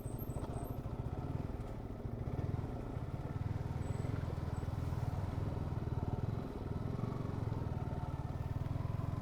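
Motorcycle engine running steadily under way, with a brief dip in level about six and a half seconds in.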